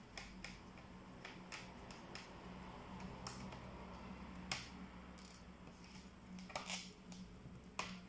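Scattered sharp clicks and taps of a Lenovo ThinkPad Edge laptop's plastic and metal parts being handled and pried apart during disassembly, a few seconds apart, over a faint steady low hum.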